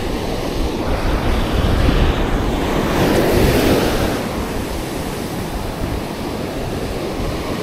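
Ocean surf breaking and washing up the sand, with a wash of whitewash swelling about three seconds in. Wind buffets the microphone with a low rumble.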